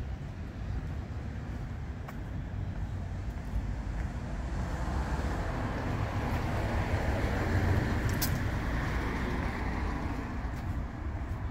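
A car passing on the street, its tyre and engine noise swelling to a peak about seven or eight seconds in and then fading, over a steady low rumble. A brief sharp tick sounds at the loudest moment.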